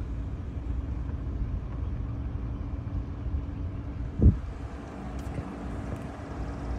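Steady low hum and rumble of a slow-moving vehicle, heard from on board, with wind rumbling on the microphone and a single brief low thump about four seconds in.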